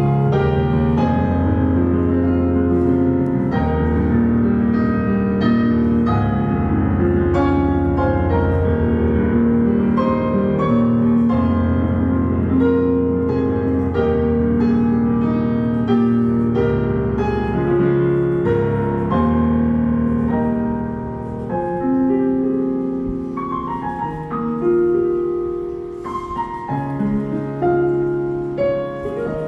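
Roland GP607 digital mini grand piano playing a slow ballad in full chords over a sustained bass. About two-thirds of the way through, the bass drops away and the playing thins to a lighter, slightly quieter passage of higher notes.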